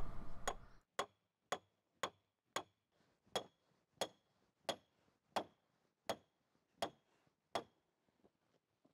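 Hammer driving a steel stake into gravel: eleven sharp metal-on-metal strikes, about one and a half a second, each with a short ring, spacing out slightly before they stop near the end.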